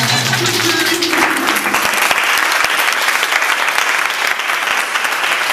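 An audience clapping steadily, with many hands together. A voice is heard briefly under the clapping in the first second.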